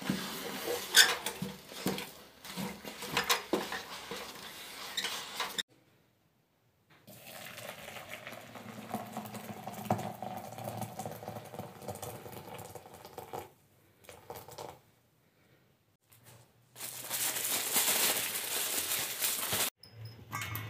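A wooden stick stirring in a metal pot of flour over a charcoal stove gives a quick run of clicks and knocks. After a short silence comes a stretch of softer, steadier sound, and near the end a loud hiss of running tap water.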